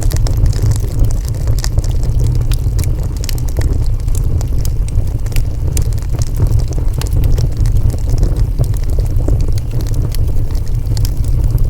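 Wood fire crackling: many small sharp pops and snaps at irregular intervals over a steady low rumble of the burning.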